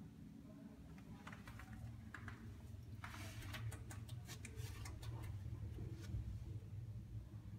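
Faint, steady low electrical hum in a power factor correction cabinet with its capacitor bank and contactors. A run of light ticks and clicks comes between about three and five seconds in.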